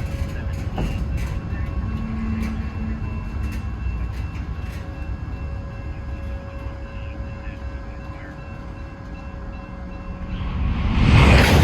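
Norfolk Southern freight train's cars rolling past: a steady low rumble with scattered sharp clicks and faint squealing tones from the wheels. Near the end it swells into a loud rushing noise.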